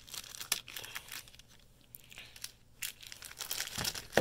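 Plastic card-deck packaging being handled and opened, crinkling and crackling in irregular bursts, with a single louder knock near the end.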